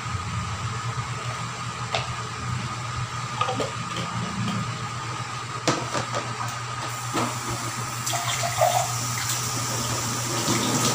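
Kitchen tap water running into a stainless steel sink, with plastic and dish knocks and clinks as dishes are handled; the water hiss grows fuller from about seven seconds in.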